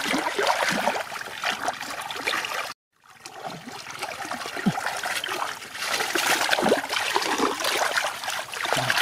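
Hands splashing and sloshing through shallow muddy water and squelching into soft mud, groping for fish by hand. The sound cuts out completely for a split second about a third of the way in.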